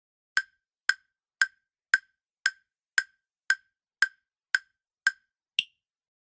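Countdown timer sound effect ticking about twice a second: ten identical sharp wood-block-like ticks, then a final higher-pitched tick that marks time up for answering.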